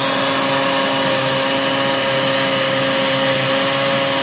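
Electric countertop blender running steadily, churning a creamy liquid mix in its jar: a constant motor whine over a rush of noise.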